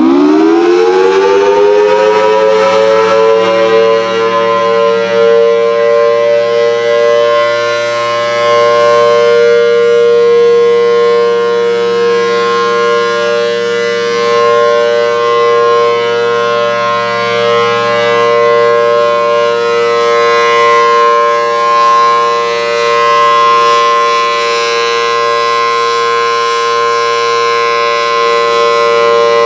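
Federal Signal Thunderbolt 1000BTSC tornado siren, a 4/5-port dual-tone model, sounding the steady Alert signal. It finishes winding up in the first couple of seconds, then holds a loud steady two-note chord that swells and fades slightly in loudness.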